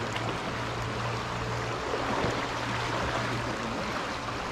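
Fast, shallow river water rushing steadily over riffles.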